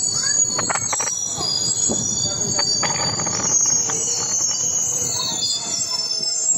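Passenger train of blue Indian Railways coaches rolling along the track, its wheels squealing on the rails in several steady high pitches over a low rumble, with clicks of wheels over rail joints.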